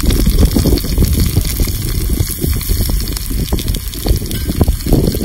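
Wind buffeting the microphone: a loud, gusty low rumble that swells and eases throughout.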